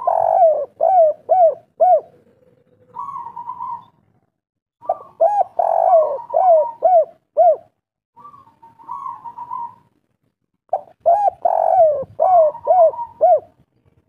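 Spotted dove cooing its 'kuk 3' song. There are three phrases, each a run of about five quick, hooked coos, with a softer purring trill between them.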